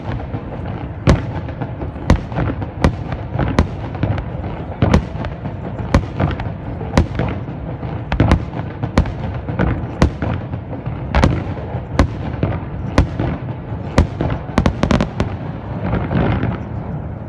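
Aerial fireworks bursting in quick succession: sharp bangs about one or two a second over a continuous low rumble of shells, with a rapid cluster of bangs near the end.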